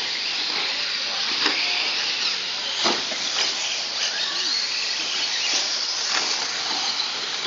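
RC short-course trucks racing on a dirt track: a steady high hiss and whine of motors and tyres, broken by a few sharp knocks, the loudest about three seconds in.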